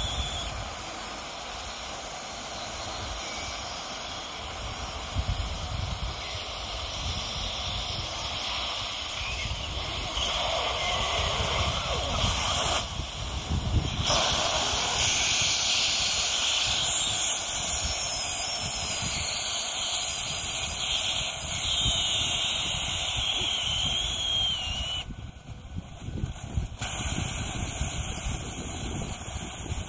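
Lion Energy Safari UT 1300 lithium iron phosphate RV battery venting through bullet holes: a steady hiss of gas and smoke escaping from its punctured cells, as they release their stored energy as heat. A wavering whistle joins in for several seconds past the middle.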